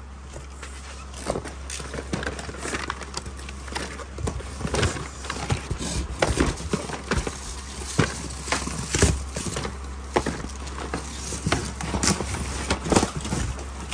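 Small cardboard product boxes being picked up and shuffled about in a cardboard carton: irregular knocks, taps and scrapes of cardboard on cardboard, over a steady low hum.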